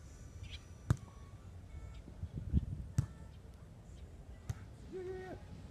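About three sharp smacks of a volleyball being struck by hand, a second or more apart, over a low outdoor rumble.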